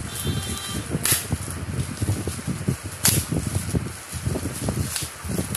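Bubble wrap crinkling and rustling as it is pulled off a plastic tub, with handling thumps and two sharp snaps about two seconds apart.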